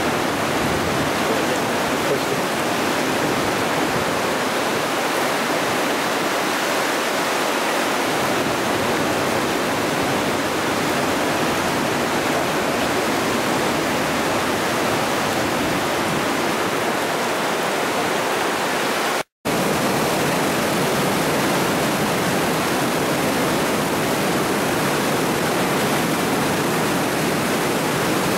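Flash floodwater rushing in a steady, loud torrent and pouring over a low wall. The sound breaks off completely for a moment about two-thirds of the way through, then carries on the same.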